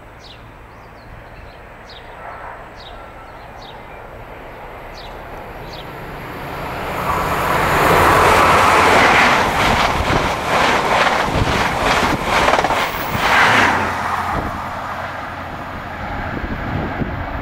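High Speed Train led by a class 43 power car approaching and passing close at speed. Its noise builds from about six seconds in, peaks as the train goes by with a quick run of wheel beats as the coaches pass, then fades. Birds chirp faintly before the train arrives.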